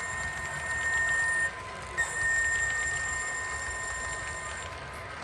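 Model EMD SD70M locomotive's sound-decoder horn blowing twice, a blast ending about a second and a half in and a longer one lasting close to three seconds, over the steady running noise of the HO scale train.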